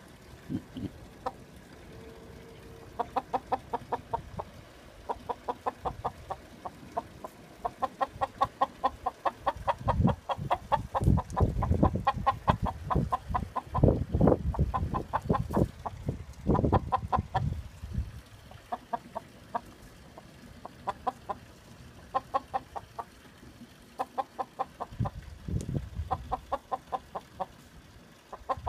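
Chickens clucking in long, rapid runs of short notes that stop and start again throughout. Louder low rumbling comes and goes through the middle and again near the end.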